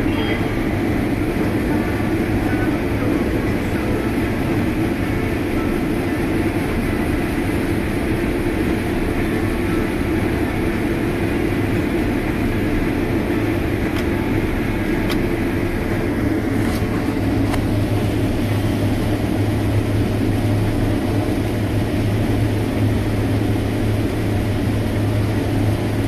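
Combine harvester running steadily while harvesting corn, heard from inside its cab: a constant, unbroken drone of engine and machinery.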